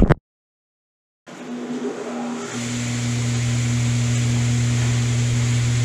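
A brief knock of a hand against the camera, a second of dead silence, then a table saw's electric motor running with a steady hum that grows louder about two and a half seconds in.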